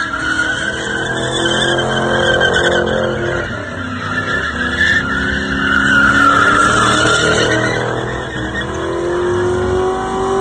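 Ford Crown Victoria's V8 held at high revs while the rear tyres spin and screech in a burnout, the squeal wavering in pitch. Near the end the engine note climbs.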